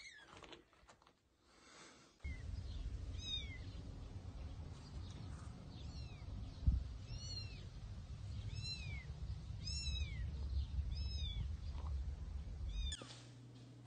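Kitten mewing over and over, short high-pitched cries that rise and fall, about one a second, over a steady low rumble.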